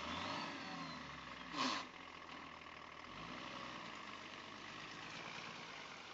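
A 4x4 pickup's engine running at low revs as the truck creeps forward. About a second and a half in there is a short, sharp noise, the loudest moment.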